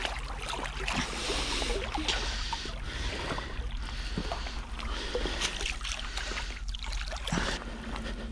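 Water splashing and sloshing at the water's edge, with scattered knocks and rustles of handling, over a steady low wind rumble on the microphone.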